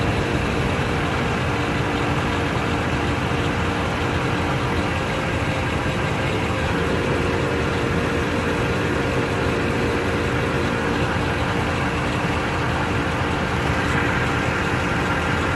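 2008 Toyota Tundra pickup running steadily, an even engine and drivetrain hum with no distinct ticking.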